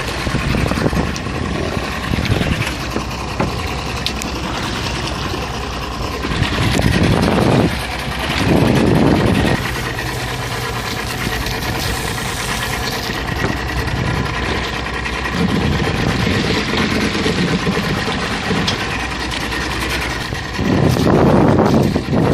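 Boat engine running steadily, with wind and water noise over it. Two louder low rushes come about a third of the way in and near the end.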